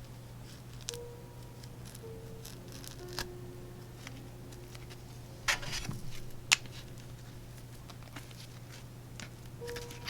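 Small sharp clicks and taps of prying tools working on a smartphone's back glass, the loudest about five and a half and six and a half seconds in. Under them runs a steady hum and soft background music with a slow, repeating melody.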